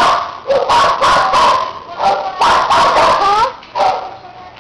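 Shelter dogs barking and yipping in a run of quick outbursts, some cries rising sharply in pitch like excited whines; the barking dies down about a second before the end.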